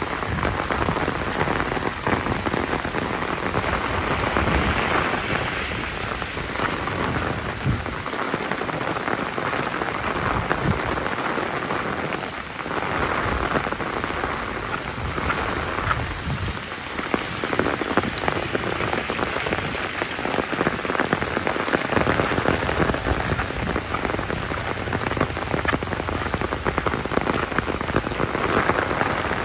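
Steady rain falling: a dense, even hiss of countless drops striking nearby surfaces.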